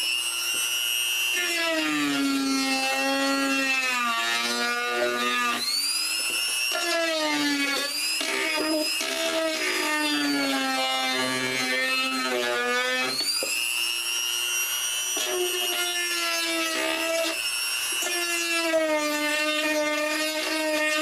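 Dremel rotary tool running at high speed while grinding away material to widen a too-tight opening. Its whine sags in pitch each time it is pressed into the work and rises again when it is eased off, over and over.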